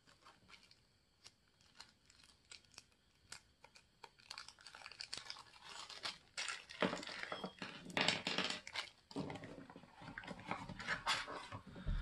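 Clear plastic packet of heatsinks crinkling as it is handled: scattered small clicks at first, then denser rustling from about four seconds in.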